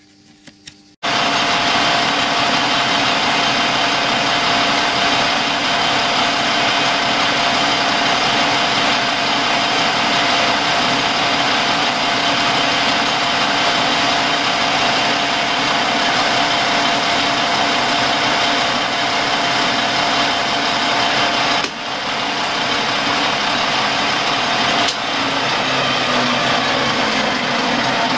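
Metal lathe running with a workpiece spinning between centres: a loud, steady machine noise with a constant high whine, starting suddenly about a second in. It dips briefly twice near the end.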